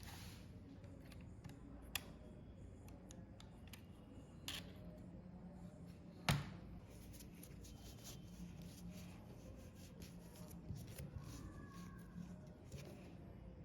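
Scattered light clicks and taps of small parts being handled by hand, with one sharper click about six seconds in.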